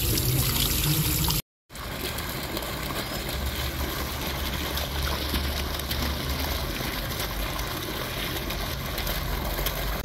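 Tap water pouring and splashing into a basin, then, after a brief cut, a fountain jet splashing steadily into a pool.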